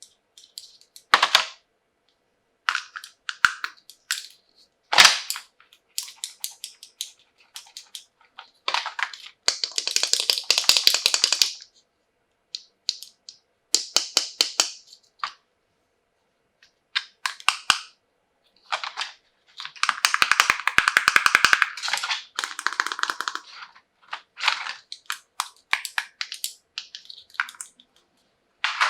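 Plastic toy pieces and packaging being handled: scattered sharp clicks and taps, with two longer stretches of rapid crinkling and crackling, one about ten seconds in and one about twenty seconds in.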